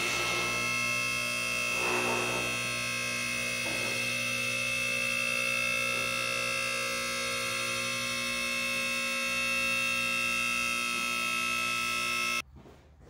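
Atlas 408-SL four-post car lift's electric hydraulic power unit running with a steady hum and whine as it slowly raises the lift's runways, then cutting off suddenly near the end.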